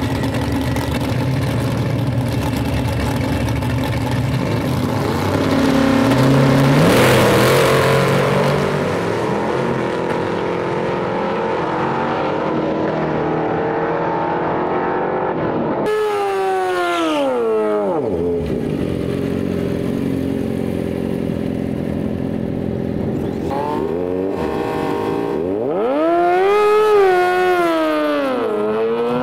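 A vintage pickup drag truck's engine runs at the start line, revs up and launches about six seconds in, then fades as it runs away down the track. After a cut about sixteen seconds in, a drag-racing motorcycle's engine revs in sharp rises and falls at the start line, then climbs hard again near the end.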